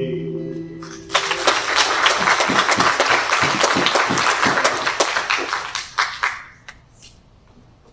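Congregation applauding: dense clapping starts about a second in and thins out to a few last claps near the end.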